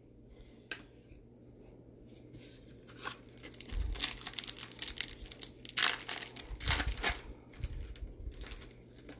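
Foil wrapper of a 2019 Bowman trading-card pack being torn open and crinkled by gloved hands: irregular crackling rips starting about two and a half seconds in, loudest a little past the middle.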